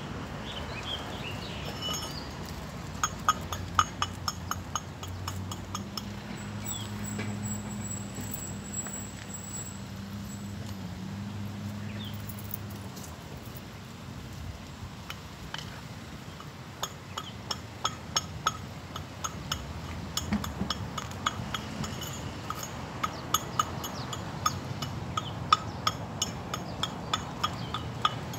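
Runs of light, sharp clinking taps, several a second, from hand work on a concrete curb. A low, steady hum sits under them from about five to thirteen seconds in.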